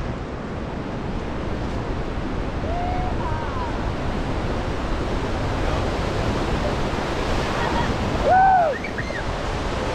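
Whitewater of a big river rapid rushing steadily around an oar raft, with wind buffeting the microphone. Brief calls from a person ride over it, the loudest a short whoop about eight and a half seconds in as the raft drops into the waves.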